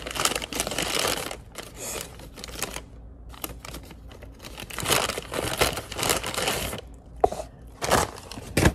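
Paper takeout bag rustling and crinkling as it is opened and handled, in two loud spells, followed by a few sharp knocks near the end.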